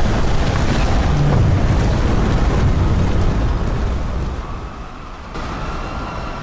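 Ship breakup sound effect: a loud, deep rumbling roar that dies down about four seconds in, giving way near the end to a quieter steady rumble with a faint high whine.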